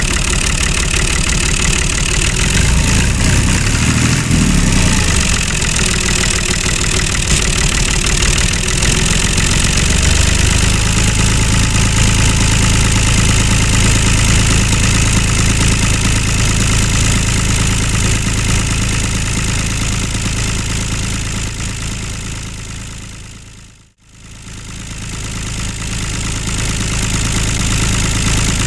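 Tractor engine running, uneven for the first few seconds and then steady, fading out almost to nothing near the end and coming back.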